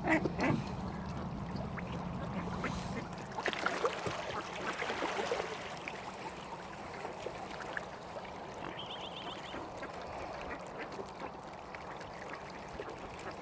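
Mallard ducks quacking, with calls right at the start and a busier run about four to five seconds in. A low steady hum underneath stops about three seconds in.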